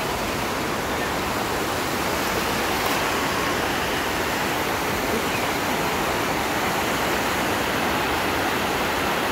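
River water rushing over a shallow sloping rock ledge, a steady rush of white water.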